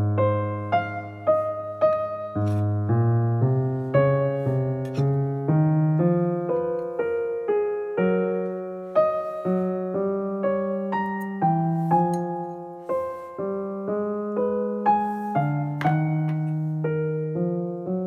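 Background music: a slow, gentle piano piece, its notes starting one after another and fading.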